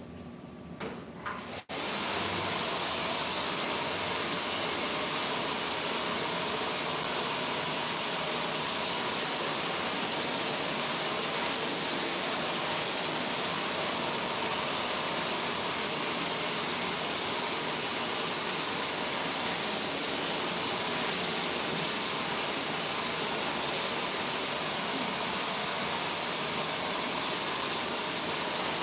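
Handheld hair dryer switched on about two seconds in, then blowing steadily as hair is dried.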